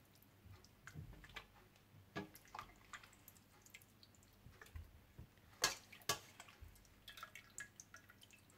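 Soft cooked tomatoes being spooned and poured for blending: scattered wet drips and light clicks of a utensil against a container, with two sharper knocks a little after halfway.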